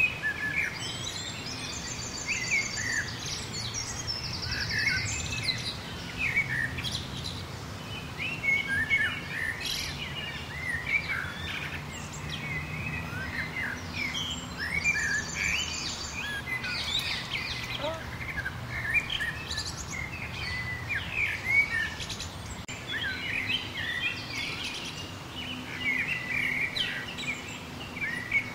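Several small birds chirping and calling in the trees, with a few short high trills.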